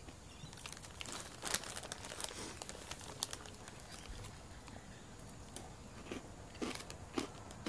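Quiet room with a few faint clicks and crackles scattered through it, the sharpest about a second and a half in, about three seconds in and twice near the end.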